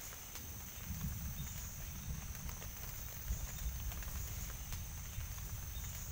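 Footsteps through wet forest ground with scattered clicks and a low uneven rumble, over a steady high chirring of night insects that swells and fades in a regular pulse.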